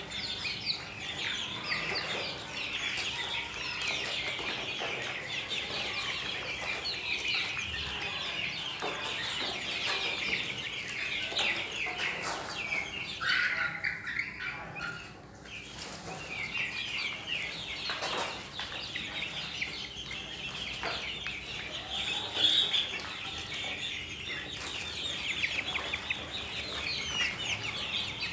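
A flock of young chickens, mostly Australorps, cheeping and clucking together in a dense run of overlapping high calls, with a brief lull about halfway through.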